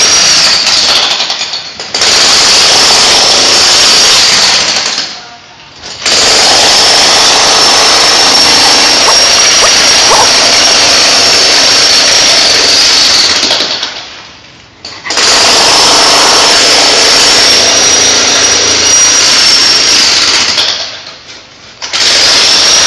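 A loud power tool running with a high steady whine, in long bursts that cut out briefly four times.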